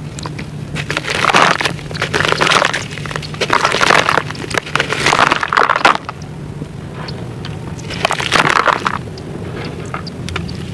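Chunks of gritty sand-cement being crushed and crumbled, crackling and crunching in several bursts, with a pause before a last burst about eight seconds in.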